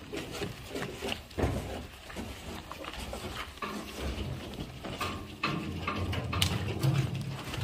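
Cattle moving about in the steel bed of a livestock truck: scattered knocks and thuds of hooves and bodies against the floor and slatted sides, with a low call from the cattle late on.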